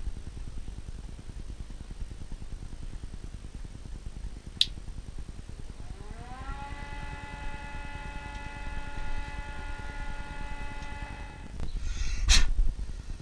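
A steady machine whine that glides up in pitch about six seconds in, holds level for about five seconds and then cuts off abruptly, over a low rumble. A few sharp clicks come earlier, and a loud knock and rustle near the end is the loudest sound.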